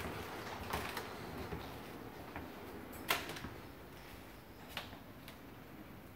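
A few scattered light taps and clicks over a low steady hiss, the sharpest about three seconds in.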